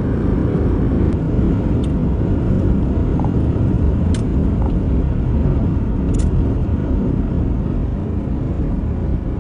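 Steady road rumble of a moving car heard from inside the cabin, a low, even noise of tyres and engine with no break.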